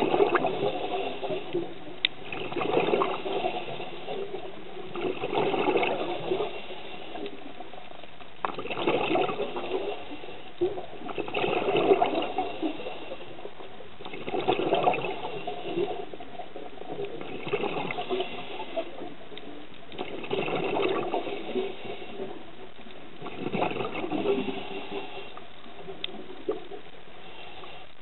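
Scuba diver's regulator exhaust bubbles heard underwater: a burst of bubbling about a second long roughly every three seconds, one for each exhaled breath, with a few faint clicks in between.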